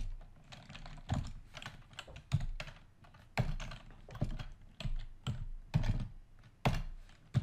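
Typing on a computer keyboard: irregular keystrokes in short runs with brief pauses between them.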